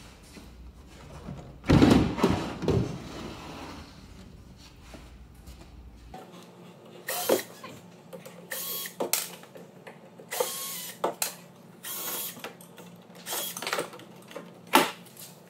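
A loud scraping clatter of a wooden floor panel being handled about two seconds in, then a cordless drill-driver running in a series of short bursts, backing screws out of the wooden floorboards.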